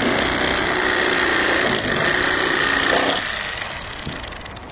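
Electric fillet knife running with a steady whine as it cuts the rib cage out of a crappie fillet, fading out about three seconds in.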